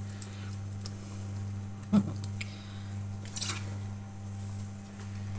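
Hands working a raw duck in a roasting tray of cut vegetables while pushing a cinnamon stick into its cavity: a soft thump about two seconds in and a brief crinkly rustle a little later, over a steady low hum.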